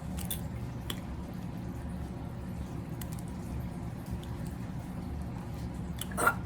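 Wet, squishy chewing and mouth sounds of someone eating spicy seafood close to the microphone, with a few faint clicks over a steady low hum. About six seconds in, a sharp louder burst marks the start of a coughing fit brought on by the spice.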